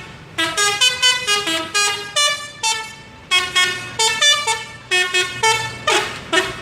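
Tour bus telolet horn, a multi-note musical horn, playing a quick tune of short notes that step up and down in pitch, in two phrases with a brief pause about three seconds in.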